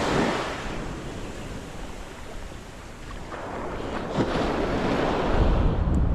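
Ocean surf breaking and washing up the beach, swelling, ebbing, then swelling again, with wind rumbling on the microphone near the end. A short sharp tap about four seconds in.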